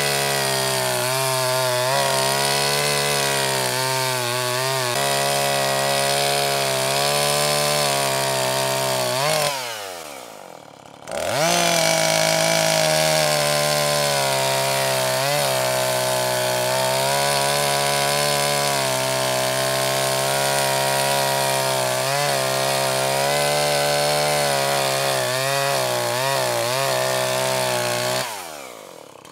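Two-stroke chainsaw running at high revs while cutting into the end of a log, its note dipping briefly under the load. About a third of the way in the throttle is released and the revs fall away, then it is revved sharply back up and cuts on; near the end the revs fall away again.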